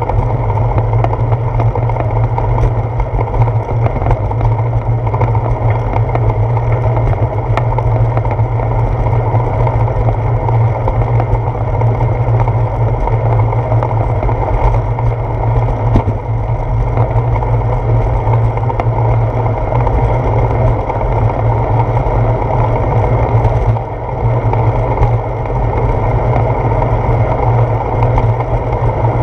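Steady low rumble of wind buffeting a handlebar-mounted GoPro Hero 4 and its microphone while cycling, with a few faint knocks, and a brief drop in the rumble near the end.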